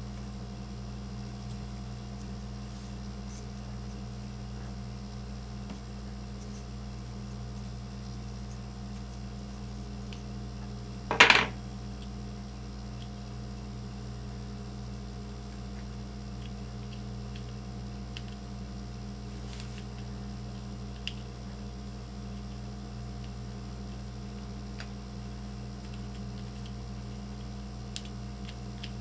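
Small plastic and metal RC-truck parts, an axle carrier and its ball bearings, handled by hand: faint clicks and ticks over a steady low hum. One short, loud clatter about eleven seconds in.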